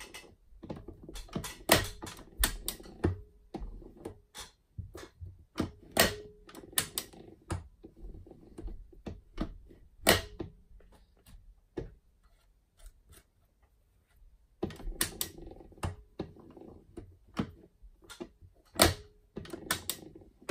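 Schaublin 70 lever-operated turret carriage worked by hand with its capstan handwheel: a series of sharp metal clicks and clunks, with a rolling rumble while the carriage is racked along the bed.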